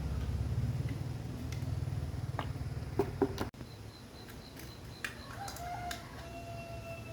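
A steady low hum cuts off sharply about halfway through, just after a couple of short calls. A bird's long call follows near the end, holding one pitch and falling slightly.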